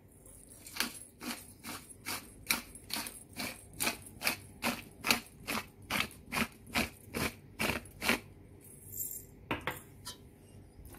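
Metal spoon clinking and scraping against a stainless steel pot while stirring marinated chicken wings, in a steady rhythm of about three strokes a second that stops a few seconds before the end.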